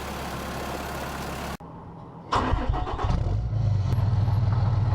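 A vehicle runs with steady engine and road noise, which cuts off abruptly about a second and a half in. Shortly after, an engine fires, picks up and settles into a steady idle.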